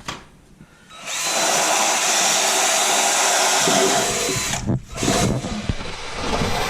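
Handheld power tool running steadily while sanding a car's underbody, with a faint high whine. It starts about a second in, cuts out briefly near the end, then starts again.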